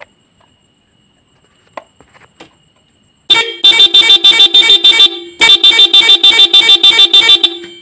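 Motorcycle horns driven by a Roots multi-tone melody maker, set to pattern D, sounding a fast pulsing beep pattern of about six beeps a second for nearly two seconds, then again for about two seconds after a short break. A few faint clicks come before the horns start.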